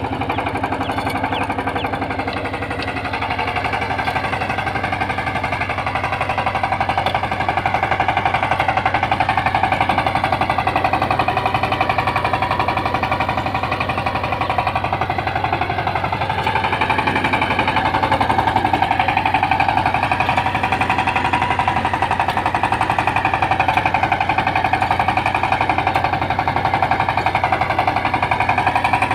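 Kirloskar Mega T12 power tiller's single-cylinder diesel engine running steadily while ploughing, a fast, even chugging that grows slightly louder a few seconds in.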